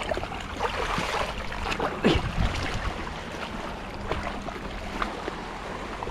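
Sea waves washing and wind at the shoreline, with a faint steady low hum beneath and a brief downward-sliding sound about two seconds in.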